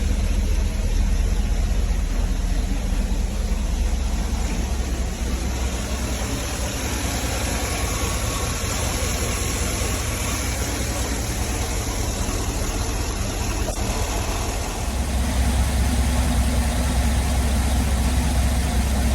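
2007 Cadillac Escalade's 6.2-litre L92 V8 idling steadily. It carries a slight, barely noticeable misfire that appears once the engine is at full working temperature, which the owner suspects comes from a valve damaged after a compression ring failure. About three-quarters of the way through, the low rumble becomes fuller and a little louder.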